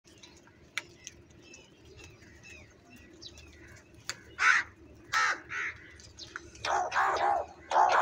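House crows cawing while feeding: faint short calls and chirps at first, then from about halfway a run of loud, harsh caws, five or six in close succession.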